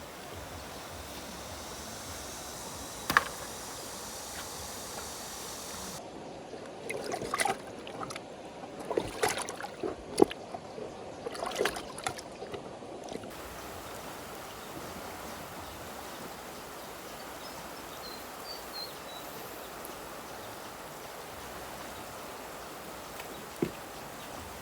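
Water sloshing and splashing over a steady flowing-water background, with irregular knocks and splashes in the middle and a single sharp knock near the start and another near the end.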